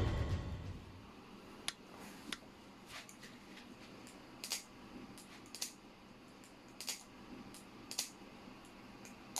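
Ryworx Setsuna balisong (butterfly knife) being flipped: about eight sharp metallic clicks of the handles and latch striking, spaced irregularly a second or so apart. The tail of fading music is heard at the very start.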